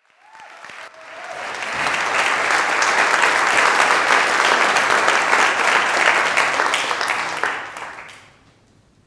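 Audience applauding, swelling over the first two seconds, holding steady, then dying away near the end.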